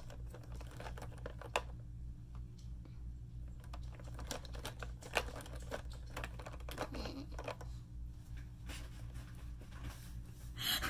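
Plastic felt-tip markers clicking and rattling against each other in a plastic bin as a hand rummages through them, over a low steady hum.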